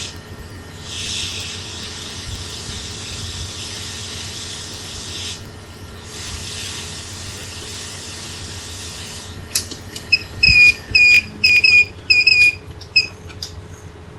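Hot air rework station blowing a steady hiss over a laptop logic board, paused briefly twice and stopping about nine seconds in. It is followed by a string of about seven short, loud electronic beeps.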